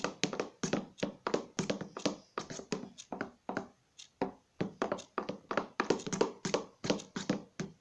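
A stirring stick knocking and scraping against a plastic tub as slime is mixed by hand: a quick, uneven run of taps, several a second, stopping near the end.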